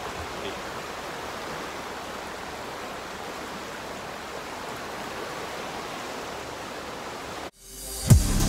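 Rushing river water, a steady even rush of a fast-flowing stream. It cuts off abruptly about seven and a half seconds in, and outro music starts near the end.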